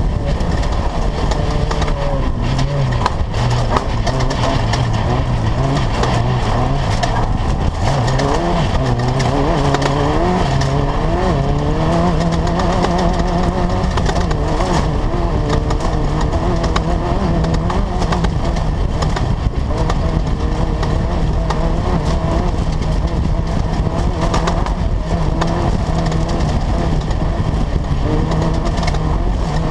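Class 10 off-road race car's engine running hard through a race lap, its revs rising and falling again and again, with frequent knocks over the rough course.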